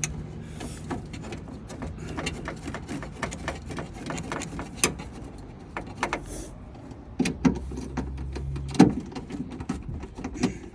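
Scattered clicks, taps and knocks of screws and the metal window-regulator bracket being handled and fitted inside a pickup truck's door, over a low steady hum.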